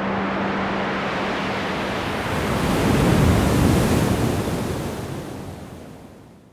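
Ocean surf: a wave rushes in, swells to its loudest about three seconds in, then washes away and fades out. A low steady hum dies away in the first two seconds.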